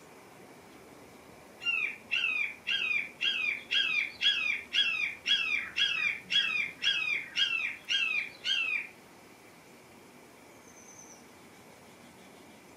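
A bird calling: a run of about fourteen short, high notes, each sliding downward, about two a second, then stopping about nine seconds in.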